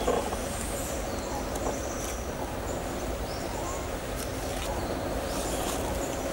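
Outdoor ambience: a steady hiss with a few short, high chirps from birds.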